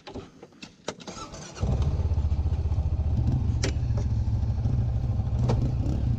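A few clicks, then an off-road vehicle's engine starts abruptly about a second and a half in and runs with a steady, low, fast-pulsing rumble.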